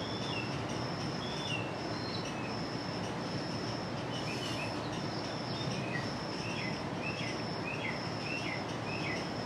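Outdoor background noise with birds calling: a short high note repeated about once a second, and a run of quick chirping calls in the second half.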